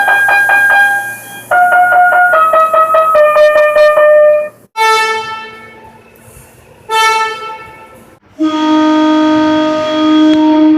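Seoul Subway Line 4 train horns. An electronic melody horn plays a quick tune of stepped notes for about four and a half seconds. Two short horn blasts follow, each fading away, and from about eight seconds in a loud, sustained chord horn sounds.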